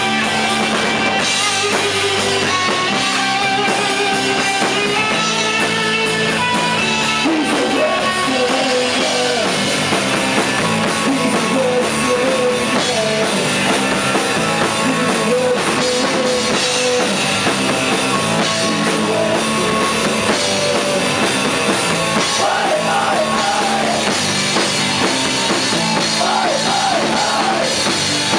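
Rock music: a full band with drum kit, guitars and singing playing without a break.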